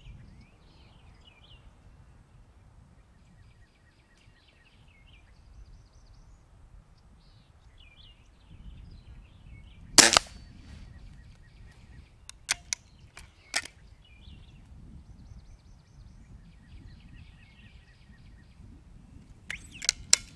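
A Weihrauch HW97K .177 underlever spring-piston air rifle fires a single shot about halfway through, a sharp crack. A few lighter clicks follow over the next few seconds. Near the end, a quick cluster of metallic clicks comes as the underlever is worked to cock the rifle.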